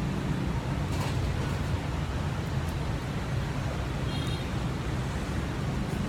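Steady low rumble of street traffic, with a faint click about a second in and a brief faint high tone near the end.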